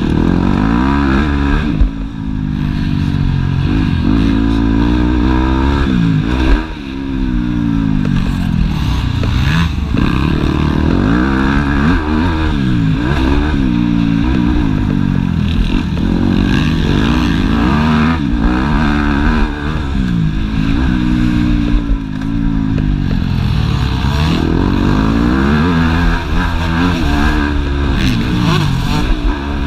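Yamaha YZ250F four-stroke single-cylinder motocross engine heard from on the bike, revving hard and dropping back again and again as the rider accelerates, shifts and shuts the throttle around the track. There is a brief sharp knock about six and a half seconds in.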